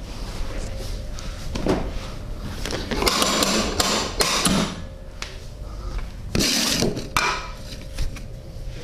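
Percussive massage: hands striking or tapping the body, in two louder spells of quick strikes, about three seconds in and again about six and a half seconds in, with scattered lighter taps between.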